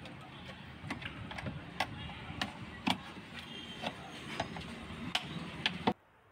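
Irregular sharp clicks and taps, roughly one or two a second, from a chest deep freezer's thin inner lining sheet being pressed and tucked under its plastic rim trim by hand and with a small tool. The sound cuts off suddenly near the end.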